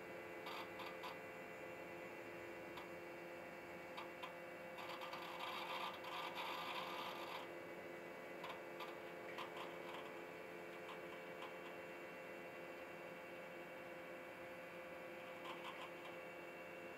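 Faint clicking of keys on a mechanical keyboard being typed: scattered key presses, with a quick flurry from about five to seven seconds in, over a steady electrical hum.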